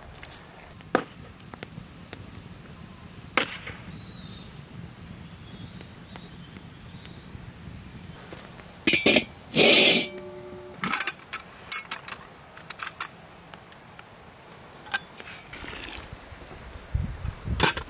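Scattered knocks and metal clinks of outdoor cooking work at a pot, with a loud clatter that rings briefly about nine to ten seconds in.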